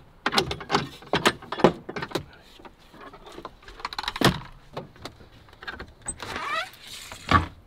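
Footsteps knocking on the wooden steps of a truck camper, then the lever handle and latch of the camper's wooden door clicking and the door opening with a short squeak, and a thump near the end.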